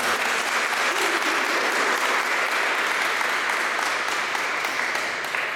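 A group of people applauding, many hands clapping at once; it eases off near the end.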